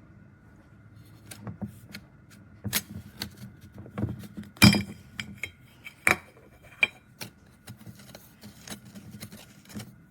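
Salt and pepper grinders being handled: a run of irregular clicks, knocks and clinks of metal against metal and wood, the loudest about halfway through.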